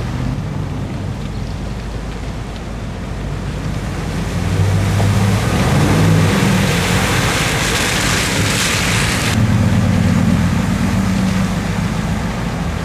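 Pickup trucks driving through deep floodwater on a road, their engines running and tyres throwing up spray. A louder rush of splashing water builds as a truck passes close, from about four seconds to nine, then cuts off suddenly.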